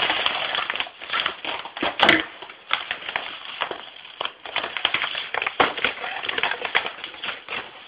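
Yellow padded envelope being torn open by hand: irregular crackling and rustling of the envelope, with a sharper rip about two seconds in.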